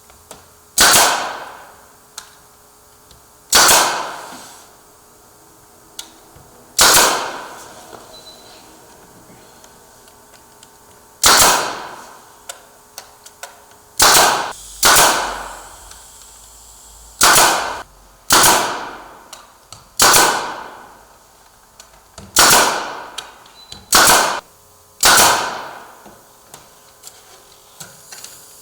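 Pneumatic nail gun firing single shots into wooden interior door casing: about a dozen sharp bangs at irregular intervals of one to four seconds, a few coming in quick pairs.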